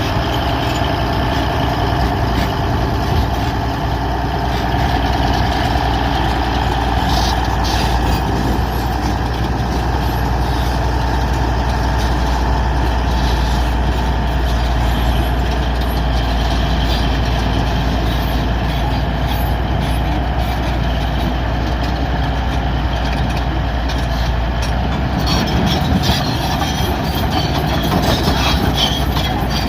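Bulldozer's diesel engine running steadily with a constant low drone, with brief rattling about a quarter of the way in and again near the end.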